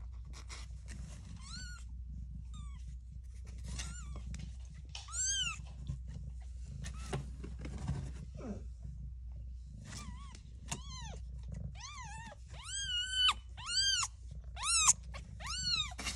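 Newborn kittens mewing: thin, high cries that rise and fall, a few scattered at first and then many in quick succession over the last six seconds, over the mother cat's low, steady purr.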